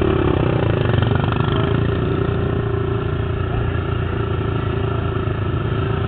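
Racing quad (ATV motocross) engines running steadily on the track.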